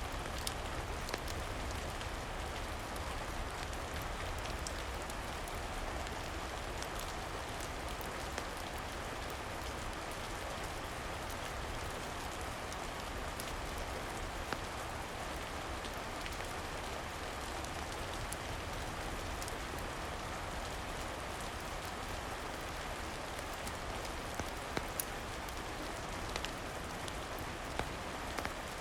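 Steady rain falling, an even hiss with a low rumble underneath, broken by a few scattered sharp ticks and pops.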